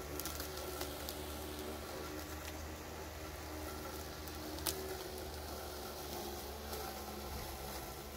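RC lawn mower running across grass: its 775 brushed electric cutting motor, salvaged from a cordless drill, spinning 3D-printed blades along with the crawler's drive, giving a steady tone. A single sharp click about halfway through.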